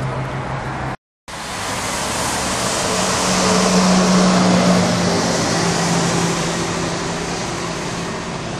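Long-distance coach driving past close by: engine drone and road noise swelling to a peak about four seconds in, then slowly fading as it moves away. A brief dropout in the sound comes about a second in.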